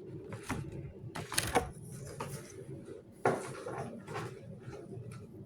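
Knocks, clacks and rustling of objects being handled, with sharp clacks about a second and a half in and again just past three seconds.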